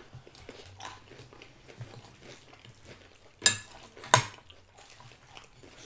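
Quiet eating at a table, with two sharp clinks of a spoon against a bowl a little past the middle, about two-thirds of a second apart.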